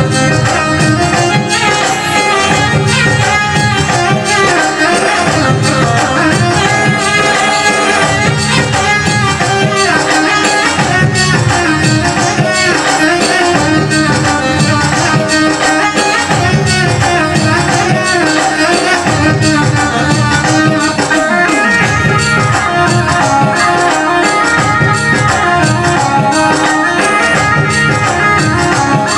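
Live Rajasthani devotional folk music: a dense melody over hand drums and jingling, rattling percussion in a steady repeating rhythm.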